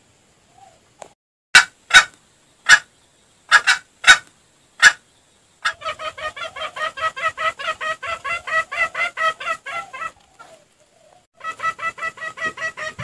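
Junglefowl clucking in fast runs of about six clucks a second, a recorded lure call for wild junglefowl. In the first few seconds there are seven sharp, loud clicks before the clucking starts.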